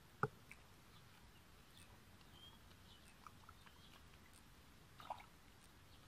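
Near silence, broken by a few short wet squelches and clicks of hands and feet working in shallow mud, the sharpest about a quarter second in and another about five seconds in.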